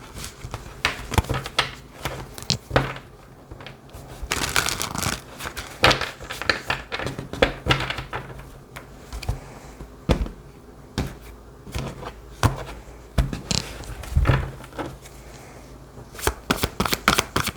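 Tarot cards being shuffled by hand: an irregular run of sharp card clicks and rustles, thicker in stretches and thinning in brief pauses.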